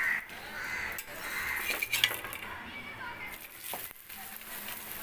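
Metal spatula clinking and scraping on an iron tawa as a paratha is buttered and worked on the pan, with a sharp clink about two seconds in. A crow caws several times in the first two seconds.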